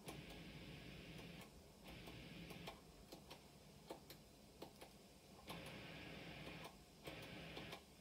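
Acoustic B25 bass combo amp putting out a faint hiss that cuts in and out several times as its volume and overdrive knobs are turned, with scattered faint clicks. This is the unexplained noise of a faulty amp run up on a variac at reduced mains voltage.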